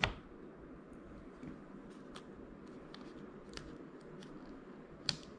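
Faint small clicks and ticks of an M1 MacBook Air shift keycap and its metal stabilizer bar being worked into place by fingers, with a sharper click right at the start.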